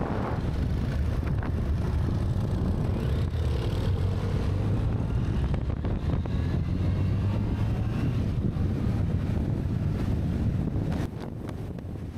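A 2018 Yamaha FJR1300's inline-four engine running at road speed, with heavy wind noise on the microphone. The sound drops in level about a second before the end.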